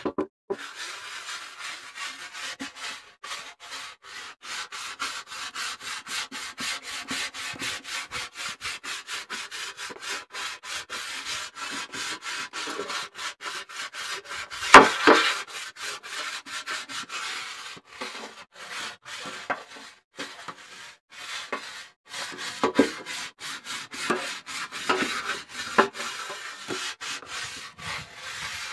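Pumice grill stone scrubbing a wet, soapy steel griddle top in quick, even back-and-forth strokes, stripping the surface for reseasoning. One stroke about halfway through scrapes louder than the rest.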